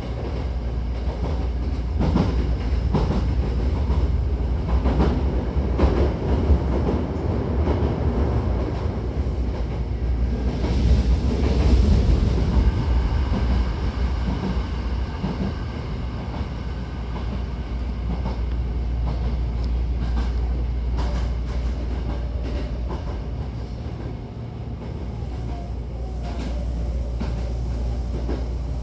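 Hankyu 1000-series electric train running between stations, heard from inside the car. A steady rumble of wheels and running gear with scattered rail-joint clicks, louder in the first half and easing later.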